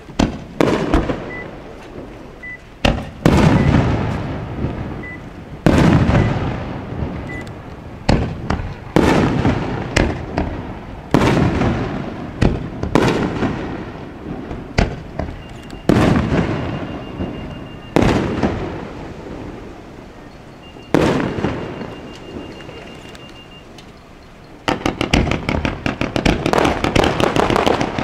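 Aerial fireworks shells bursting, a sharp boom every one to three seconds, each followed by a long rolling echo. About 25 seconds in, a rapid string of many quick bursts sets in.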